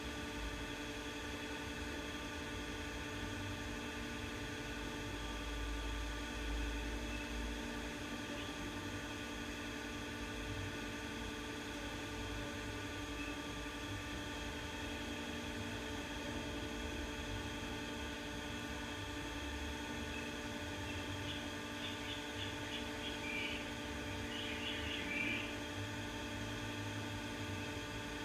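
CMC Niko 48-inch industrial ceiling fan running, its motor giving a steady hum.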